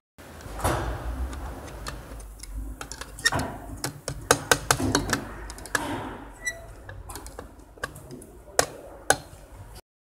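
Irregular sharp metallic clicks and taps as the friction disc of a VW Touran's dry dual clutch is moved and probed by hand with a flat metal tool.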